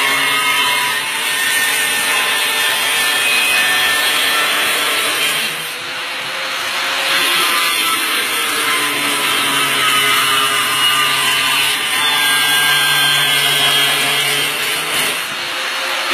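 Angle grinder cutting through a floor tile: a steady motor hum under loud, gritty cutting noise. The cut eases briefly about six seconds in, then carries on.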